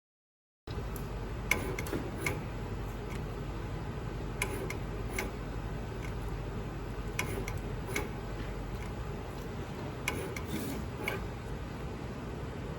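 Automated soldering machinery running steadily, with light mechanical clicks coming in pairs about every three seconds as the machine cycles. The sound starts suddenly after a moment of silence.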